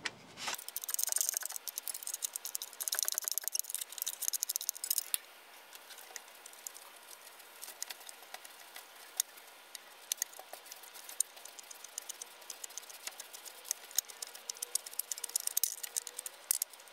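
A 16 mm ratcheting wrench clicking in quick runs as it backs out the top bolt of an engine mount, with small metallic clinks. The clicking is busy for the first few seconds, thins to scattered ticks in the middle, and picks up again near the end.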